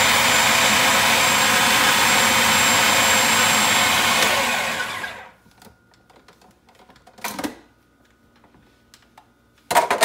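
Electric food processor running with its chopping blade, mincing onions, then winding down and stopping about five seconds in. A couple of plastic knocks and clatters follow as the lid and bowl are handled, the loudest near the end.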